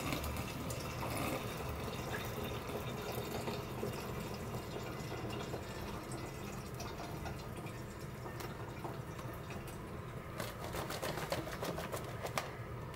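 Hot water draining from an instant noodle tray's perforated corner vent into a stainless steel sink: a steady splashing trickle. A few clicks come in the last few seconds.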